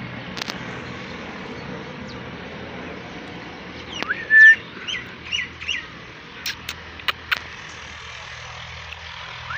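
A pet parrot chirping: a short held whistle about four seconds in, then four quick up-and-down chirps. Several sharp clicks follow a second or so later, over a steady background hiss.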